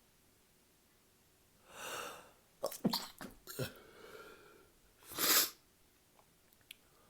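A person in a sneezing fit: a loud breath in about two seconds in, a quick cluster of sharp sneezes around three seconds, then one more loud sneeze near five seconds.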